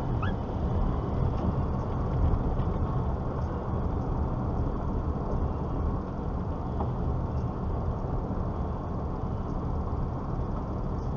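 Car driving along a winding road, with steady engine and road rumble heard from inside the cabin. Two short high chirps sound just at the start.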